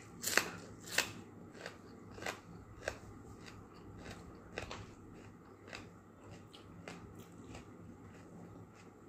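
Mouth-close crunching as a person chews a raw green vegetable, with two crisp loud crunches in the first second, then fainter crunches every half second or so.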